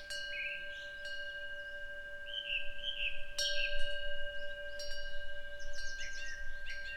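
Korean temple wind bell (pungyeong) ringing, struck several times with its tones hanging on between strikes. Small birds chirp between the strikes.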